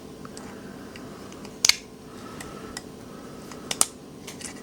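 Light clicks and taps of small metal parts of a disassembled folding knife being handled, a sharp click about a third of the way in and a quick pair of clicks near the end, over a low steady hum.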